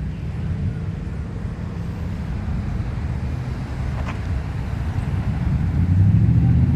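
Low, steady rumble of a motor vehicle's engine, growing louder about six seconds in, with one faint tick about four seconds in.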